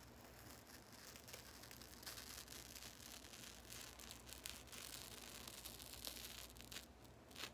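Faint crackling and tearing of a dried charcoal peel-off mask being pulled slowly off the skin of the nose, a little louder from about two seconds in.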